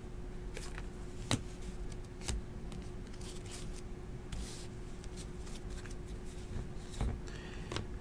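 Glossy trading cards being handled and sorted by hand: scattered soft clicks and taps of card on card as they are flipped through and set down on piles.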